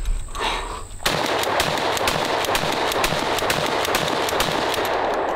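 12-gauge pump-action shotgun, a Tokarev USA TX3, firing birdshot shot after shot in quick succession, with the pump worked between shots. The shots start about a second in and run together into one continuous loud racket.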